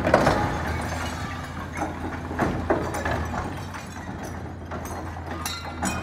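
Demolition excavator's hydraulic crusher jaw breaking up a concrete-block and steel wall: irregular crunches, knocks and clatters of breaking masonry and metal over the steady drone of the machine's diesel engine. The knocks are loudest at the start, around the middle and near the end.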